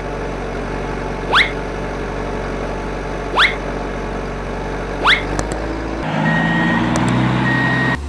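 Steady engine-like rumble of an RC toy excavator, with four short rising whistles spaced about one and a half to two seconds apart; about six seconds in it shifts to a lower, humming motor drone.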